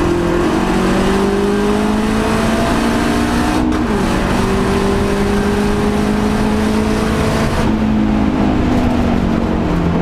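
Ford Fiesta ST Mk7's turbocharged 1.6 EcoBoost four-cylinder heard from inside the cabin under hard acceleration on a drag pass, its note climbing steadily, with gear changes at the very start and about four seconds in. About eight seconds in the note drops and turns duller, and the pitch then falls off gradually.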